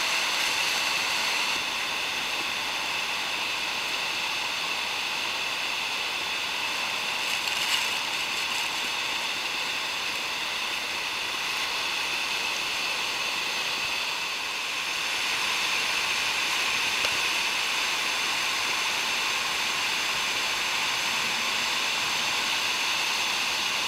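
Iguaçu Falls' cascades and rapids pouring: a steady, even rush of falling water, mostly hiss with little low rumble.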